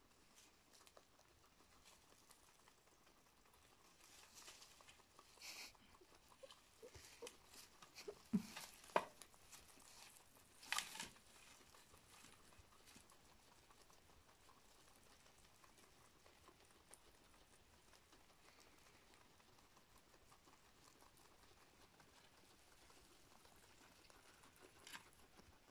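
Faint crunching and rustling of grass as a lionhead rabbit and guinea pigs chew, with a cluster of louder clicks and crackles from about four to eleven seconds in, then near silence.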